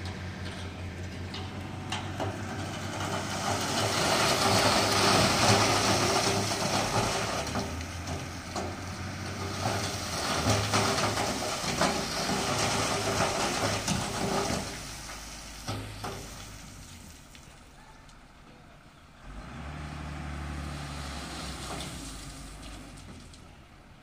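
Diesel tipper truck running while stone aggregate pours out of its raised bed: a loud rushing hiss of sliding stones that builds over the first few seconds and dies away after about fifteen seconds, with the engine's low hum underneath that swells again near the end.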